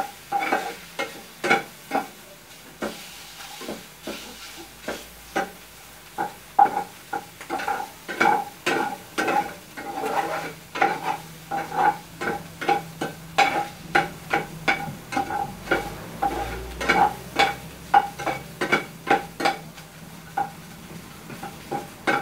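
Metal spoon stirring diced pork fat in a nonstick frying pan, clinking and scraping against the pan about twice a second, over the faint sizzle of the fat frying as it renders its lard.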